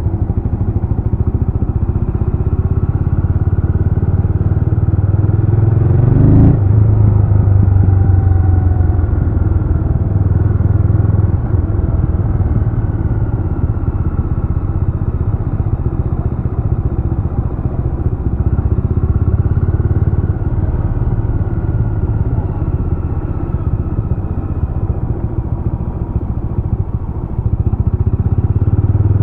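Jawa RetroTrail 650's 650 cc single-cylinder engine running under way on the road. The revs climb about six seconds in and peak with a single sharp knock, then the engine runs steadily before pulling harder again near the end.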